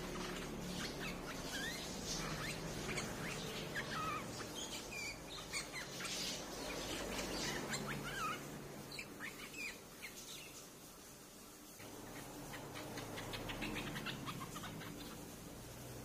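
Streak-eared bulbuls calling: a busy run of short chirps and quick rising and falling notes that thins out about two thirds of the way through, then picks up faintly again near the end.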